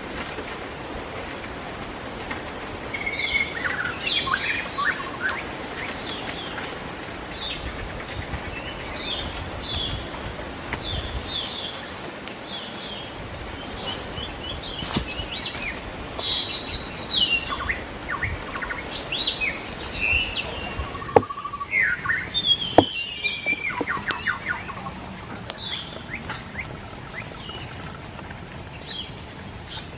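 Small birds chirping and calling, many short calls overlapping, over a steady background hiss. Two sharp snaps about a second and a half apart a little past the middle.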